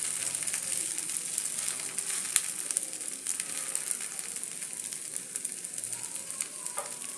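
Millet dosa sizzling on a hot griddle, freshly flipped onto its second side: a steady high hiss with scattered small crackles, slowly dying down.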